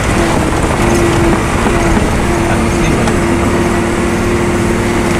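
A vehicle's engine running steadily as it drives along, a steady hum over a low rumble.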